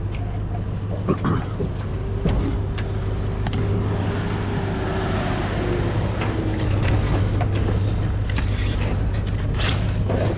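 Truck engine running steadily at idle, a low even hum with a few light knocks over it.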